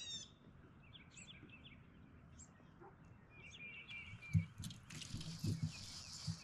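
Small birds chirping repeatedly, in short high calls. Past the middle come a few dull low knocks, the loudest sounds, and near the end a brief rushing hiss.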